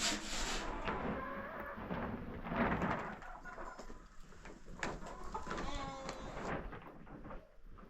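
Sheep and goats bleating, several calls a few seconds apart.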